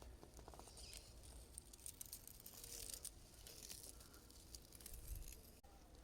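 Faint, irregular crackling and rustling from a radio-controlled rock crawler's tyres working over rough ground.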